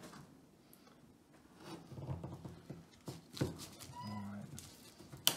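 Kitchen knife cutting through homemade Twix bars, shortbread biscuit with a caramel layer, cut from the biscuit side: soft crunching and scraping, a knock about three and a half seconds in, and a sharp tap of the blade on the board just before the end. A short hummed vocal sound about four seconds in.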